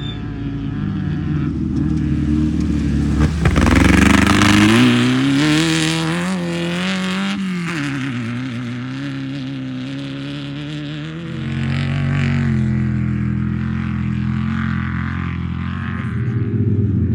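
Off-road race vehicle engine revving hard as it runs past, climbing in pitch and loudest about four to seven seconds in, then dropping off sharply; the engine note climbs again about eleven seconds in.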